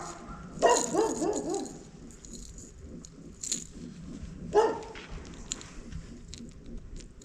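Yelping, voice-like cries: a quick run of about five rising-and-falling yelps about a second in, and one shorter cry near five seconds.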